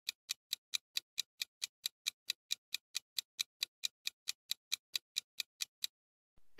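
Quiz countdown timer sound effect: steady clock ticks, about five a second, marking the answer time draining away. The ticks stop shortly before the end as the time runs out.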